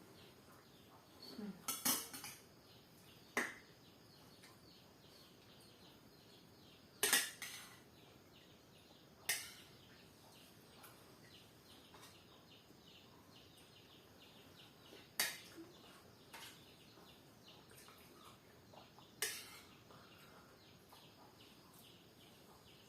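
Cutlery and plates clinking now and then during a meal, about six sharp clinks spread over the stretch, with faint bird chirping behind.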